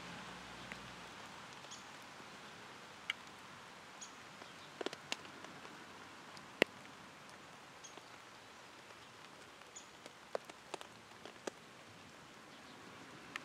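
Light rain: individual raindrops ticking sharply at irregular intervals over a faint steady hiss.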